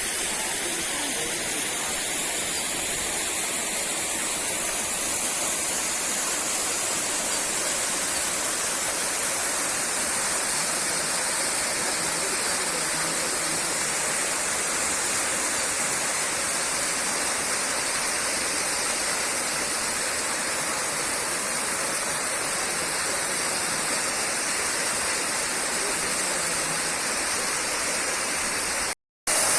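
Small waterfall: water falling and splashing in a steady, dense rush. Near the end it cuts out for a moment, then returns slightly louder.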